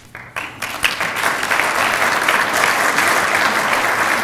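Audience applauding: a few scattered claps at first, swelling within about a second into steady applause.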